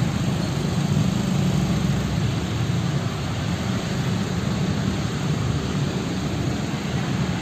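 Road traffic crossing an open railway level crossing: motorcycle and lorry engines running as they pass close by, a steady low rumble.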